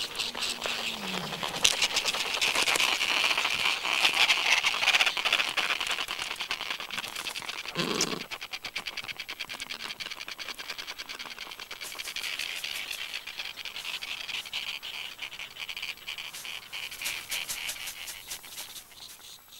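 Adélie penguin colony: a continuous chattering din of many birds calling, full of rapid clicking, with one short lower call about eight seconds in.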